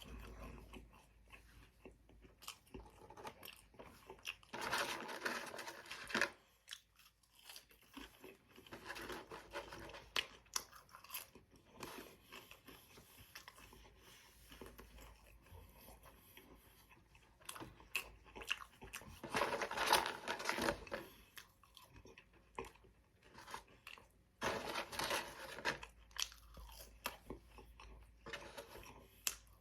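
A person chewing and crunching food with biting and mouth sounds, in three louder stretches of crunching amid quieter, irregular chewing.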